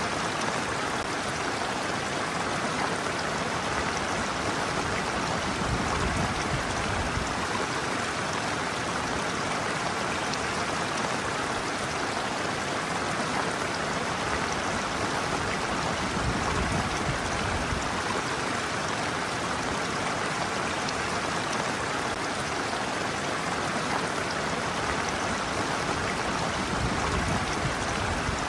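Shallow stream water running and splashing over a sloping bed, a steady rush with a constant faint fizz of small splashes.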